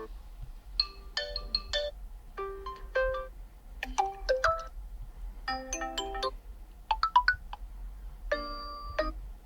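OnePlus 11 default ringtone playing: six short bursts of bright chiming electronic notes, about one every second and a half, with brief pauses between them.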